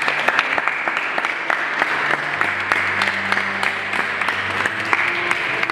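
Small audience applauding, a steady patter of hand claps.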